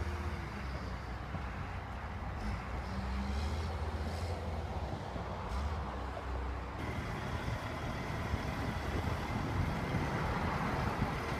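Heavy diesel engines of construction equipment running with a steady low drone. The sound shifts abruptly about seven seconds in.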